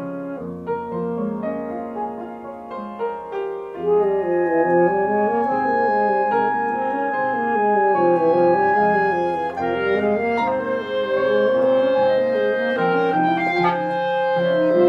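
Chamber music for woodwinds and piano: a winding line of rising and falling notes over long held tones, growing louder about four seconds in.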